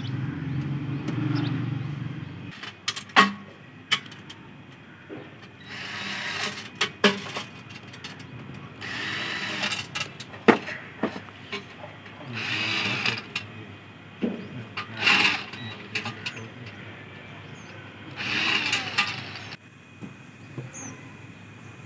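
Cordless drill-driver running in about five short bursts, driving screws to fasten metal brackets onto horn loudspeaker stems. Sharp metal clicks and knocks of the parts come between the bursts.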